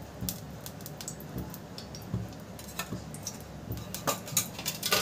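A pan of refined oil heating on a gas stove: scattered faint ticks and clicks over a low steady hum, the clicks a little more frequent near the end.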